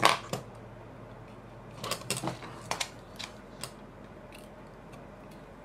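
Small clicks and knocks of tools being handled on a wooden workbench: a plastic spool of desoldering wick and a soldering iron working on a circuit board. The loudest knock comes right at the start, then a cluster of clicks about two seconds in and a few lighter ticks after.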